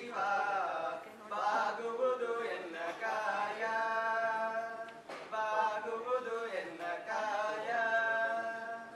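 Young male voices singing a slow Kannada devotional song, with drawn-out ornamented phrases and long held notes, stopping near the end.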